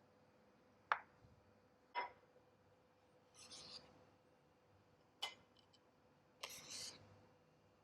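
Kitchen preparation sounds: three sharp knocks of utensils, with two short scrapes between them.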